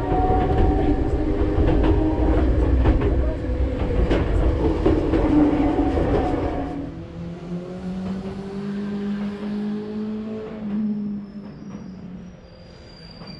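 Enoden electric train running on the rails, a loud rumble with clicks. About seven seconds in it grows quieter, leaving a steady low hum.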